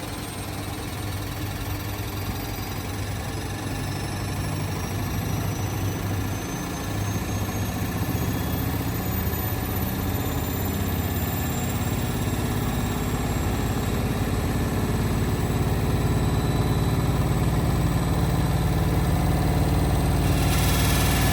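Indesit WIL143 washing machine speeding up on its 1400 rpm final spin: a motor whine rising slowly in pitch over a low rumble, growing louder as the drum gathers speed. The owner calls the noise on this spin strange.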